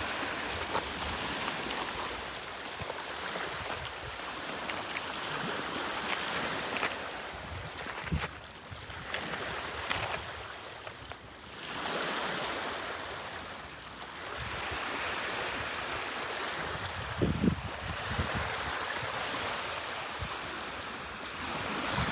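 Ocean surf washing in and out, a steady hiss that swells and fades with each wave. Wind buffets the microphone in low rumbling gusts, loudest a little after the middle.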